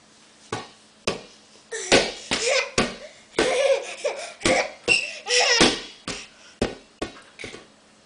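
Large inflatable beach ball bouncing repeatedly, about a dozen sharp hollow hits, with a toddler laughing and squealing between the bounces.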